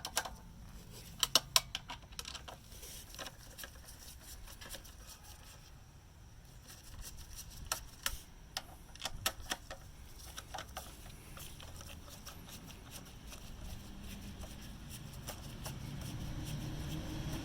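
Scattered clicks and clinks of a 10mm socket ratchet and metal parts as fasteners are undone on a small engine, in short bursts with pauses between. A low rumble grows louder near the end.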